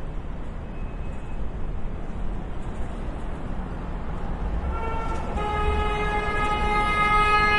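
Steady city traffic rumble. About five seconds in, a vehicle horn sounds and is held in one long, steady blast.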